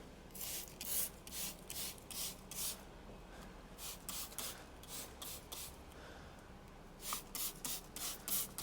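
Greasy CV joint and drive shaft being cleaned by hand: quick, repeated hissy strokes, two or three a second, in spells with short pauses between.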